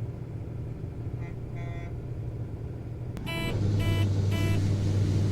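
Steady low drone of a combine running, heard from inside the cab. About three seconds in there is a click, then three short high beeps about half a second apart, and the drone grows louder.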